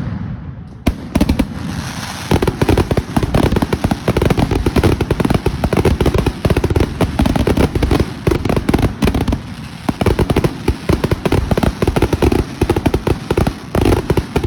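Fireworks going off in a rapid, continuous barrage of bangs and crackles, starting about a second in after a brief lull.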